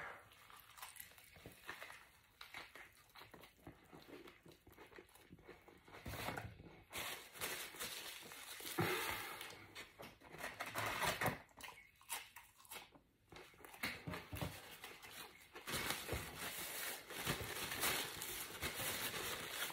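Paper burger wrapper crinkling and rustling in the hands, in short irregular bursts. It is mostly quiet at first and becomes busier from about six seconds in.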